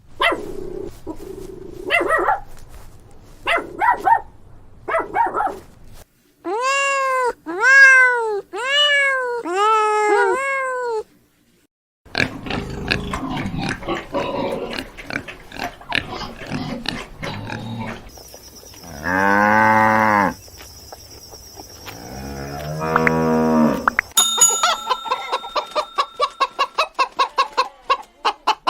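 A run of different farm animals calling one after another, a new animal about every six seconds: first short calls, then five arched pitched cries, then a noisy stretch, then long falling calls, and near the end a quick series of clicks.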